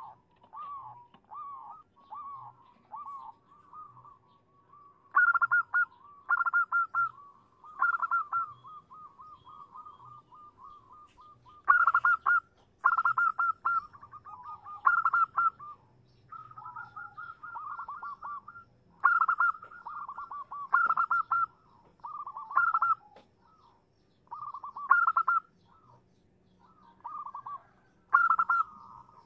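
Female zebra dove (perkutut) calling: quick stuttering, trilled cooing phrases repeated every second or two, some louder than others. It is a female's call used as a lure to draw a male into answering.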